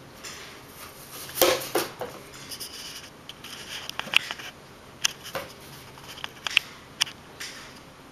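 A kitten batting and pouncing on a cardboard paper towel tube: irregular light knocks, taps and scuffs, about a dozen spread unevenly, the loudest a couple of sharp knocks early on and one near the middle.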